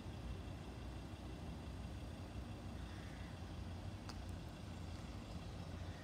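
Steady low outdoor rumble with a faint hiss at an empty railway line, with no train passing; a single faint click about four seconds in.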